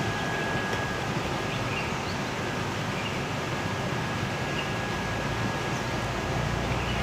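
Steady background noise: an even hiss with a low hum, and a faint thin whine that fades out about five seconds in.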